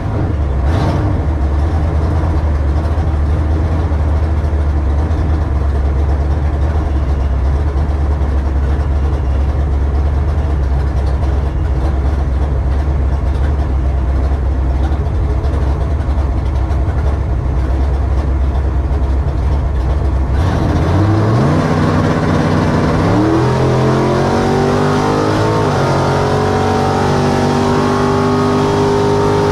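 Carbureted drag-racing truck engine idling steadily, heard close up at the hood. About two-thirds of the way through it pulls away, its pitch climbing, dropping back at a gear change, then climbing again.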